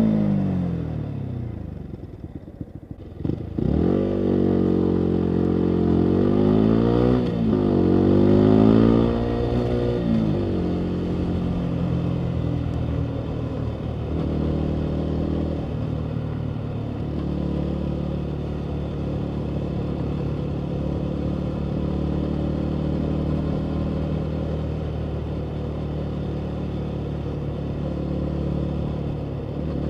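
Yamaha MT-125's single-cylinder engine through a full Akrapovic exhaust. It winds down with a few crackles as the throttle closes, then revs up through two gears with rising pitch. It settles to a steady cruise from about a third of the way in.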